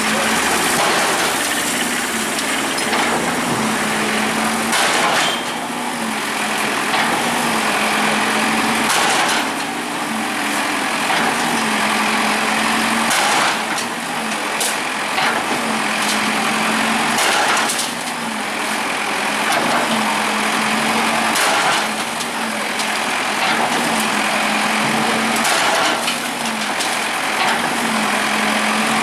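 Bulldozer's diesel engine running hard and steadily, its note swelling about every four seconds as it pushes, with sharp knocks every few seconds.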